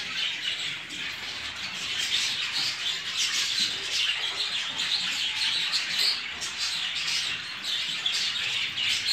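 Many budgerigars in breeding cages chattering and chirping together: a dense, continuous twittering of short overlapping chirps with no pauses.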